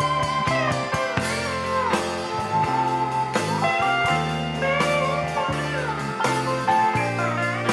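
Instrumental passage of a band recording: guitar with gliding slide notes over bass and drums, in a bluesy country style.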